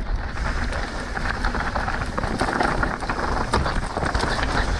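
Mountain bike descending a rocky downhill trail: tyres rolling over dirt and rock with constant clatter and rattling, over a rushing rumble of wind on the microphone.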